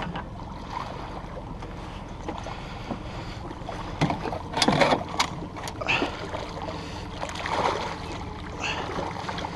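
A hooked fish splashing and thrashing at the water's surface beside the boat as it is brought to the landing net, several sharp splashes about four to six seconds in, over the steady low drone of the boat.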